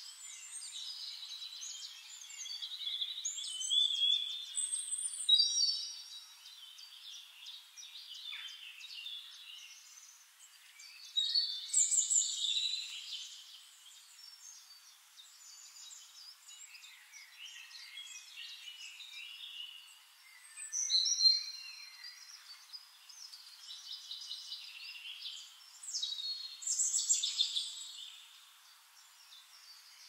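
Woodland songbirds singing, several songs overlapping in quick varied phrases, with louder bursts of song every several seconds.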